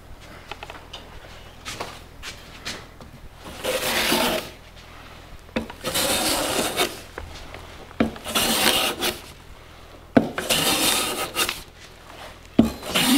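Metal hand plane taking shavings off a thin wood veneer in about five long strokes, each about a second, with a sharp knock at the start of most strokes as the plane meets the wood. The veneer is being planed flat to take out its cup.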